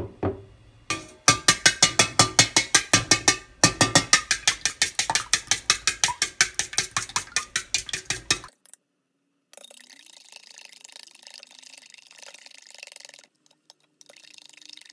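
Metal spoon beating raw eggs in a stainless steel bowl, clinking sharply against the bowl at about five strokes a second, with a brief pause about three seconds in. The clinking stops about eight and a half seconds in, leaving only faint, soft stirring.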